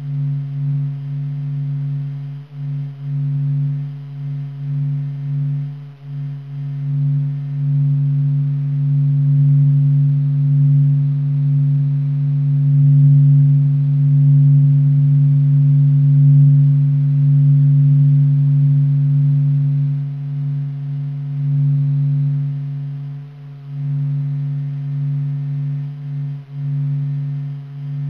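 Low, steady droning hum presented as the sound of the Sun, solar vibrations made audible. It wavers and pulses in loudness, swells louder through the middle and eases off near the end.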